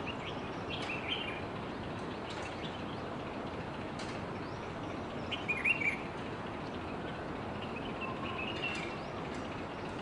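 Himalayan bulbuls calling: short chirpy notes every few seconds, the loudest a quick cluster a little past halfway, over a steady background hiss.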